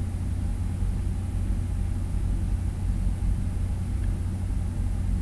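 Steady low hum with a faint hiss of background noise, unchanging throughout.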